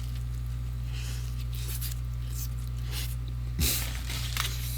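Someone biting into and chewing a crispy breaded fried-chicken sandwich close to the microphone, with a few short crunching noises and a louder one about three and a half seconds in, over a steady low hum.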